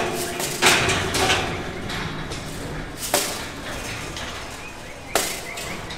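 Steel pen gates and panels clanging in a large livestock barn. There are several sharp bangs close together in the first second and a half, then single bangs about three and five seconds in, each echoing off the building.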